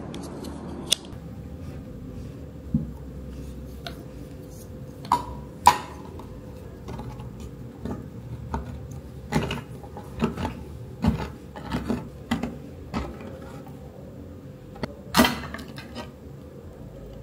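Pink plastic hand-held can opener being turned around the rim of a metal can: irregular clicks and scrapes as its cutting wheel works along the rim, with a louder click near the end as the lid comes free.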